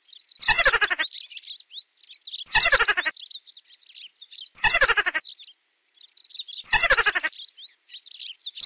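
Mouse squeaking sound effect: a loud, rapid run of squeaks falling in pitch, repeating about every two seconds, with fainter high chirps in between.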